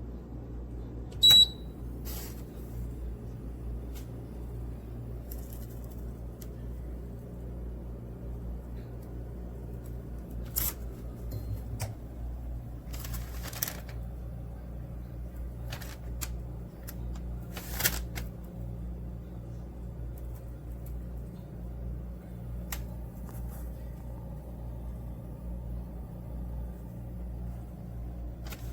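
Toshiba convection toaster oven's control panel giving a single short beep as it is set, then the oven running with a steady low hum while it preheats. A few faint clicks and knocks come in along the way.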